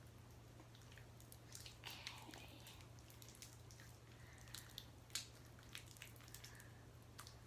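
Faint scattered sticky clicks and small squelching pops of activated glue slime being mixed and worked, the slime still tacky.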